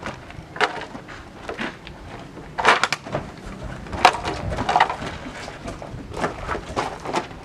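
Scattered knocks and clunks from people climbing into a Nissan pickup truck's cab through its open rear doors, about half a dozen sharp ones, loudest around two and a half and four seconds in.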